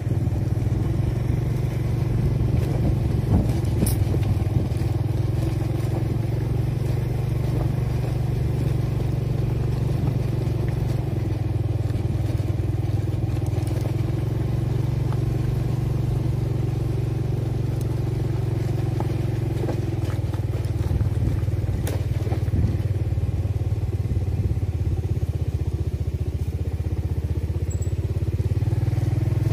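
Motorcycle engine running steadily as it rides along an unpaved track.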